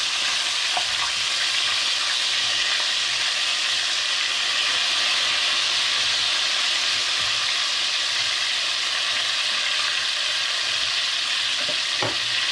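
Chicken pieces deep-frying in hot oil in a stainless steel pot: a steady sizzle, with the chicken almost done.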